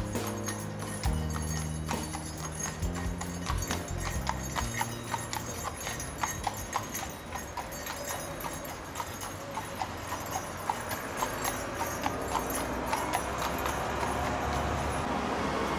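A horse's hooves clip-clopping at a steady walk on a tarmac road, about two to three hoofbeats a second, as it draws a horse-drawn hearse.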